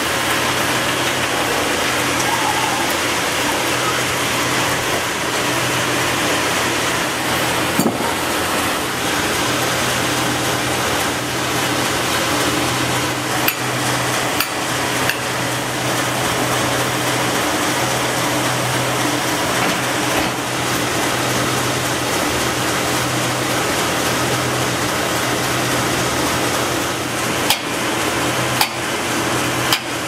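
Sawmill machinery running steadily, a constant hum under a loud, even hiss, with a few scattered metallic knocks. Near the end, two sharp hammer blows on a steel log clamp.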